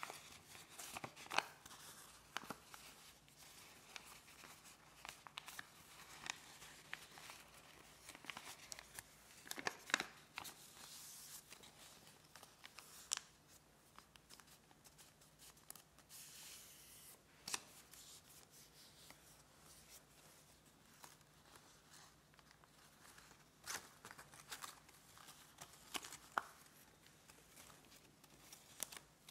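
A square sheet of origami paper being folded and creased by hand: quiet, irregular crinkles, rustles and small snaps of the paper.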